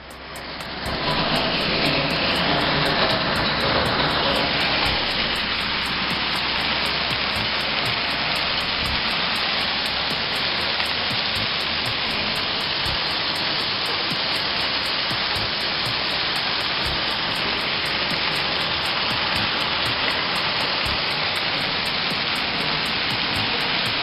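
Heavy hailstorm with wind: hail pelting down in a dense, steady rush of sound that fades in over the first second.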